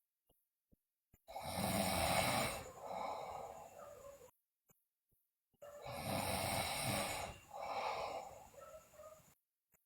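A sleeping girl snoring: two rounds of snoring breaths, each round two or three long, rasping breaths in and out, with silence before and between them.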